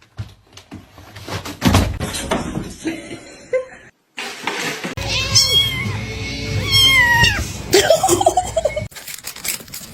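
A cat meowing: a few long calls that bend up and down in pitch, about halfway through, after some knocks and thumps.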